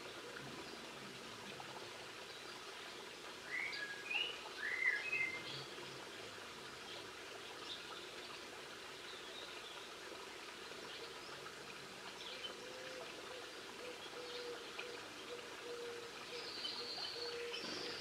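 Small songbird calls: a few short, curving chirps about three and a half to five seconds in, then faint high twittering calls near the end, over a steady background noise.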